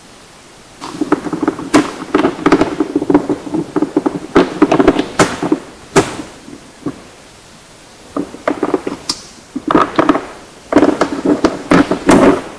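Rapid tapping, drumming and slapping on the recorder's battery box, picked up close by the gear's own microphone: quick rolls of taps with sharper knocks, in bursts, a break around the middle and a last dense burst near the end. The uploader likens it to fingers being rolled and slapped on the box by an unknown subject tampering with the gear.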